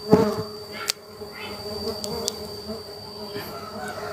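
Stingless bees (Tetragonula laeviceps and biroi × laeviceps hybrids) buzzing steadily around an opened hive box during a honey harvest, with a couple of sharp clicks in the first second as a knife works at the honey pots.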